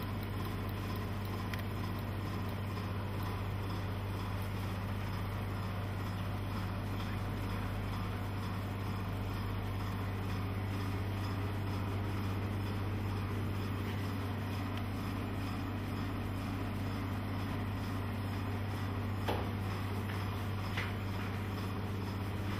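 Steady low machine hum from the film scanner's motors and cooling, unchanging throughout, with a couple of faint clicks near the end.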